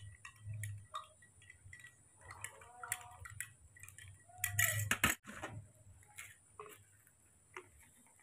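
Scattered small clicks and ticks with a few short, faint squeaks from a newborn baby monkey squirming on a towel; the loudest moment is a rustle with a brief falling squeak and a sharp click about halfway through.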